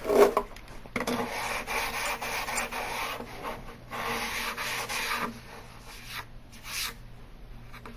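Sandpaper rubbed by hand along the freshly trimmed edge of an edge band to smooth it: two long spells of rubbing strokes, then a short faint one near the end.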